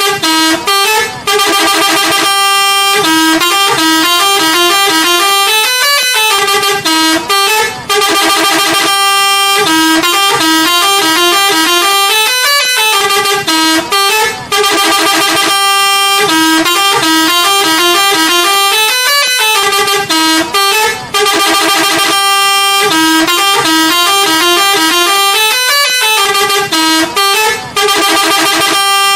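Bus telolet horn, a multi-tone air horn, playing a stepping tune. The tune loops about every six and a half seconds, four times over, with a brief break in each loop.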